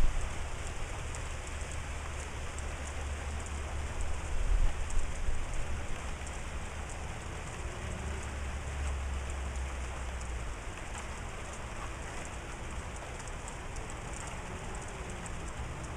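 Steady rain falling, an even hiss with light ticks of drops. A low rumble underneath swells about four to five seconds in and drops away about ten seconds in.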